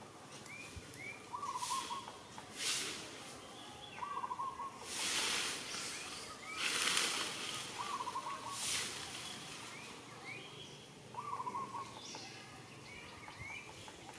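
Outdoor ambience in which a bird repeats a short warbled call four times, a few seconds apart, with small rising chirps between. Several brief bursts of rustling noise, louder than the calls, come and go throughout.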